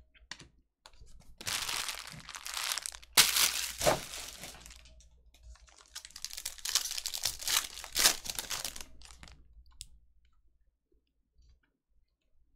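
A foil trading-card pack wrapper being torn open and crinkled by hand, in two long bouts of crackling with a sharp loud crack about three seconds in and another about eight seconds in. It stops about ten seconds in.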